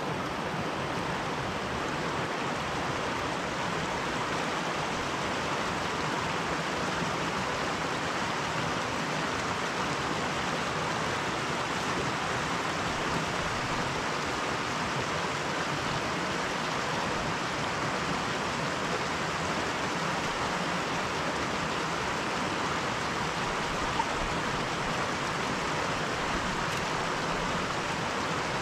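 Small mountain headwater stream cascading over rocks into a pool: a steady rush of running water.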